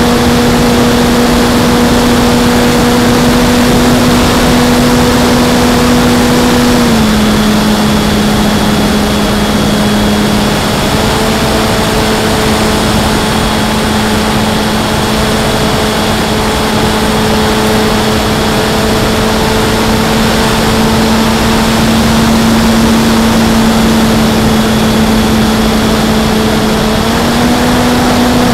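Electric motor and propeller of a Parkzone Sport Cub RC plane in flight, humming steadily over a steady rush of wind on the onboard camera. The pitch drops a little about seven seconds in as the throttle is eased back, and rises again near the end.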